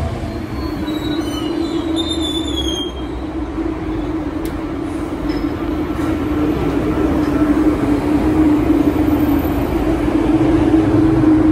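MBTA Red Line subway train rolling along the platform, its steady low running hum broken by thin, high wheel squeals about one to three seconds in.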